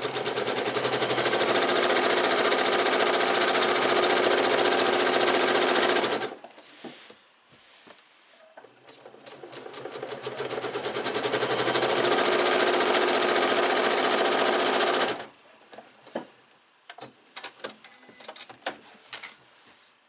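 A Janome Memory Craft 8200 computerised sewing machine stitching at speed, then stopping abruptly about six seconds in. It starts again a couple of seconds later, speeds up gradually to a steady run, and stops abruptly about fifteen seconds in. Light clicks and fabric handling noises come in the pauses and after it stops.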